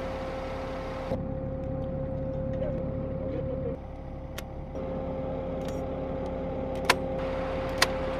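The M1128 Stryker Mobile Gun System's diesel engine running at idle, a low rumble with a steady whine over it that drops away for about a second midway. A few sharp clicks sound over it, the two loudest near the end.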